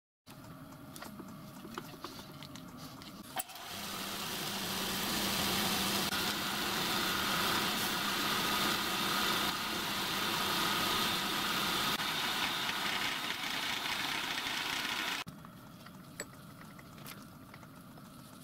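Pillar drill running and drilling a 2.3 mm clearance hole through a small brass gland. The louder drilling starts about three and a half seconds in and cuts off sharply about fifteen seconds in, followed by a low hum and a few light clicks.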